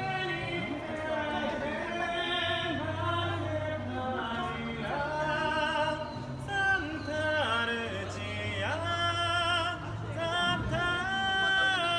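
A gondolier singing solo in an operatic style, holding long notes with a wavy vibrato.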